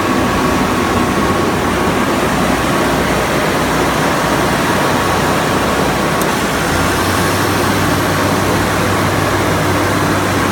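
20-ton Trielectron aircraft ground air-conditioning unit running with a loud, steady rush of air and machinery. It has just been started and has not yet begun cooling. A low hum grows stronger about two-thirds of the way in.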